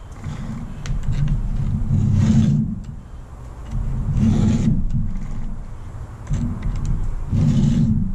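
Stihl 2-in-1 chain sharpener being drawn across chainsaw chain teeth in slow strokes, about one every two seconds. Its round file sharpens the cutter tooth while its flat file takes down the depth gauge in the same pass.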